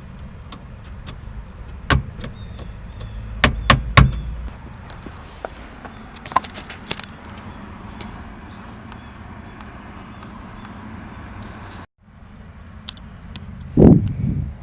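Sharp metal taps of a hammer on a flathead screwdriver, working the steering column's shear bolts loose: four strikes in the first four seconds, then a quick run of lighter clicks, and a heavier thud near the end. Crickets chirp steadily in the background, about twice a second.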